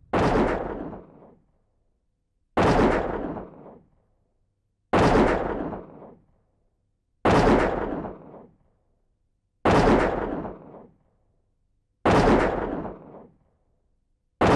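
A gunshot sound effect with a long booming echo, repeated seven times at even intervals of about two and a half seconds, with silence between. The identical, evenly timed shots are an edited-in effect, not live gunfire.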